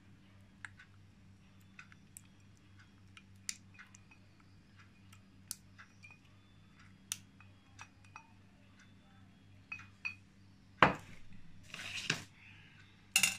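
Silicone spatula scraping sour cream out of a glass bowl into an enamel pot: faint scattered clinks and taps of the spatula against the bowl, then a louder knock about eleven seconds in and another just before the end. A steady low hum runs underneath.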